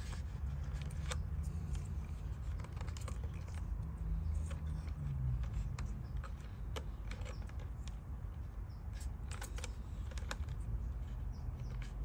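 Scattered small clicks and taps as crimped female spade connectors are handled and pushed onto the metal terminals of a plastic rocker switch, over a low steady hum.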